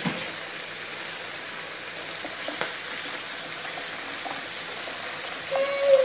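Water pouring in a steady stream into a stainless steel pot of chicken pieces, splashing into the water already there. A short falling tone comes in near the end.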